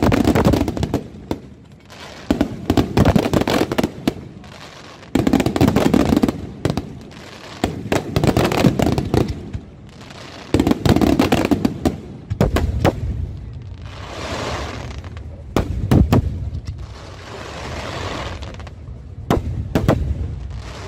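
Fireworks display: aerial shells bursting with sharp bangs, each wave followed by dense crackling, coming about every two and a half to three seconds. In the second half the bursts give way to a lower rumble with hissing swells between the bangs.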